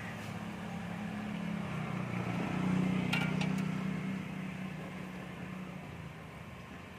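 A passing vehicle's engine hum swells about three seconds in and fades away, over the faint sizzle of chicken pieces deep-frying in a wok of hot oil. A few light metal clinks of the spatula against the wok come near the middle.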